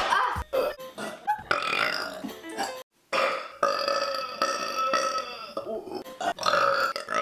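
A woman burping loud and deep: a few short burps, then after a cut one long drawn-out burp of about two and a half seconds, then more short burps near the end.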